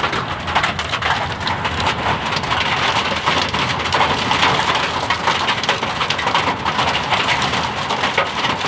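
Hailstones and heavy rain pelting down in a storm, a loud, continuous clatter of countless small hits.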